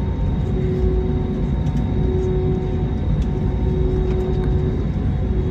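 Cabin noise of an Airbus A321neo taxiing, heard from a seat over the wing: a steady low rumble from its Pratt & Whitney geared turbofan engines at idle and the wheels on the taxiway, with a hum that keeps fading in and out.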